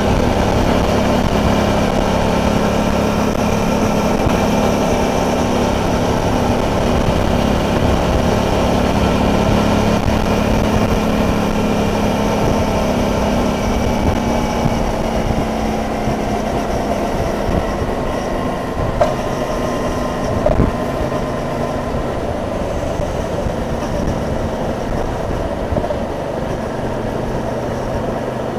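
Suzuki DL650 V-Strom's V-twin engine running under way, heard from a camera mounted on the bike together with wind and road rumble. The engine note eases a little past the middle, and two brief knocks come about two-thirds of the way in.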